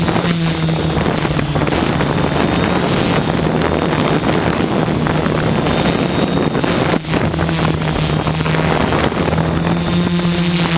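OFM 650S V2 quadcopter's electric motors and propellers humming steadily in flight, with heavy wind buffeting the microphone; the hum dips briefly about seven seconds in.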